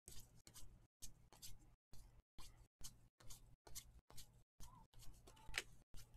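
Trading cards being slid off a stack and flipped by hand, one at a time: a faint, soft swish about twice a second.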